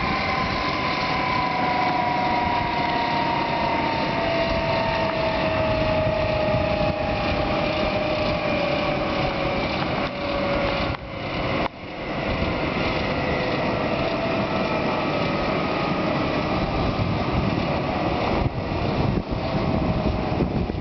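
Boeing 737-500's twin CFM56-3 turbofan engines running at low taxi power: a steady jet rush with a whine that slowly falls in pitch as the jet rolls to a stop.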